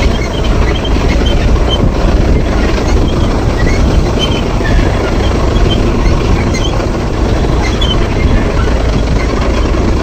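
Mahindra Yuvo 475 DI tractor's four-cylinder diesel running under load while pulling a tine cultivator through dry stubble, a loud steady rumble with scattered light ticks of the implement and soil.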